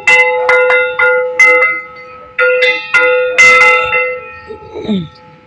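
Puja hand bell rung in quick, uneven strokes, each stroke ringing on with the same bright set of tones. The ringing stops about four and a half seconds in.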